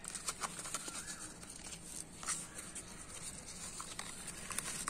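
Soft scratching and crackling of dry potting soil being stirred by hand in a clay pot, a run of small irregular ticks and scrapes.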